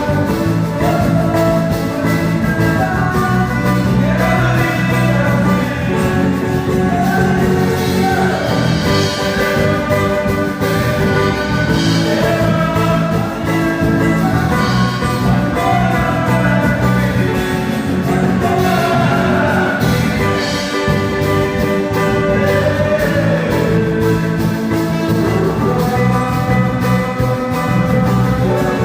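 Worship music playing steadily: a flowing melody, with singing, over sustained instrumental accompaniment.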